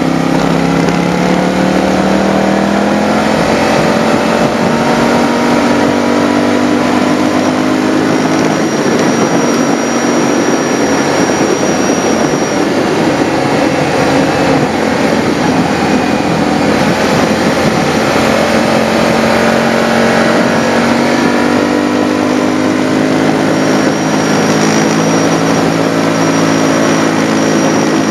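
Motorcycle engine running under way, with wind rushing over the microphone. The engine pitch rises as it accelerates in the first few seconds and again over the last several seconds.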